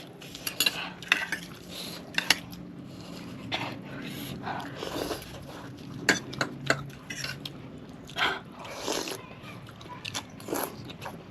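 Cutlery and dishes clicking and clinking at irregular moments during a meal, with some scraping and chewing.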